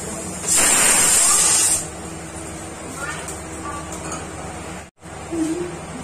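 Pressure cooker on a gas stove releasing steam through its weight valve: a loud hiss lasting over a second, showing the cooker has reached pressure.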